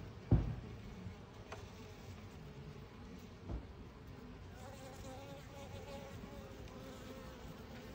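Honeybees buzzing at the hive entrance, with a single bee's buzz close by and clearer in the second half. A sharp low thump comes just after the start and a softer one about three and a half seconds in.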